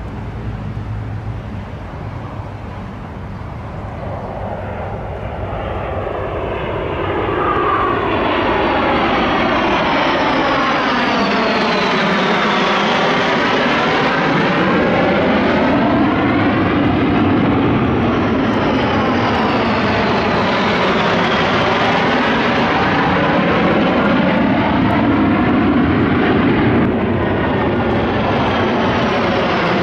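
Formation of fighter jets flying past overhead: the jet engine noise builds over the first several seconds and then stays loud, with a swishing sweep up and down in pitch as the aircraft pass.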